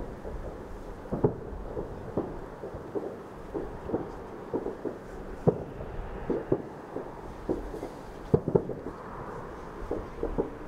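Distant fireworks display: a continuous, irregular run of bangs and pops from bursting shells, several a second. A few louder bangs stand out, about a second in, halfway through, and two close together in the last third.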